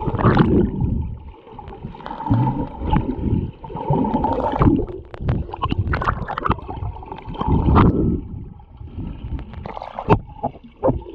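Pool water gurgling and sloshing against a camera as it goes under the surface and back up, with irregular surges and sharp knocks.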